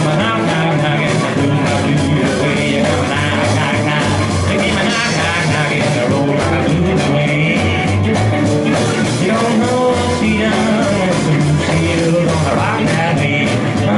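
A rockabilly band playing live: upright bass, drum kit, electric guitar and acoustic guitar, with a man singing into the microphone.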